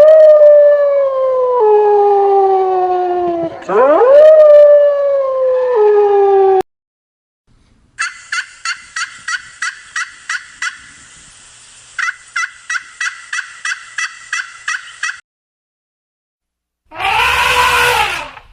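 A series of animal calls from different animals in turn. First come two long, drawn-out cries, each with a quick rise and then a slow stepped fall in pitch. After a pause comes a run of rapid, evenly spaced clicks over a steady tone, and near the end another pitched call begins.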